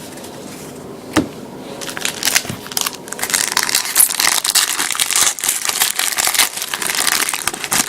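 Wrapper of a trading card pack crinkling and crackling as the pack is torn open and handled. A single click comes about a second in, and the crinkling starts around two seconds in and keeps going.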